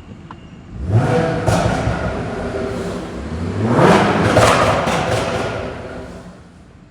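Audi A7 3.0-litre V6 exhaust: the engine is revved up twice, about a second in and again around four seconds in. Each time the revs fall away it gives sharp pops and crackles from the exhaust on the overrun.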